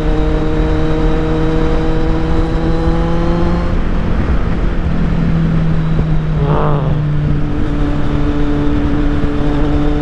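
Kawasaki Z800's inline four-cylinder engine through an Akrapovic exhaust, running steadily while riding at speed, its pitch dropping a little about two-thirds through, with wind rushing over the microphone.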